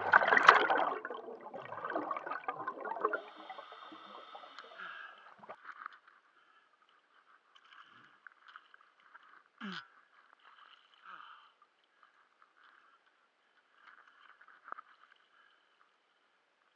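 Water gurgling and bubbling, loudest in the first few seconds and fading out by about six seconds in, then near quiet with a few faint clicks.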